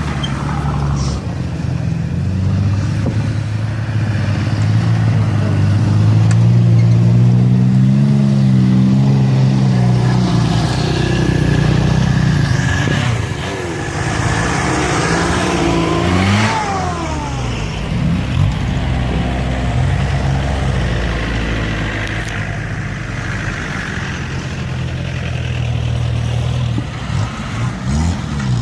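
Off-road 4x4 vehicles driving past one after another, their engines rising and falling in pitch as each goes by, with several short revs in the middle and near the end.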